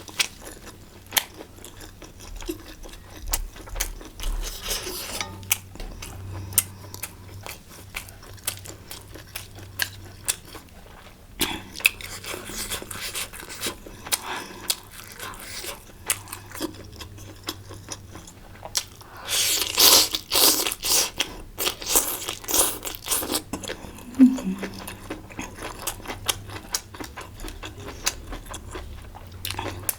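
Close-up eating sounds of a person chewing and biting into hotpot food, with many small wet clicks. There is a louder, noisier spell about two-thirds of the way through.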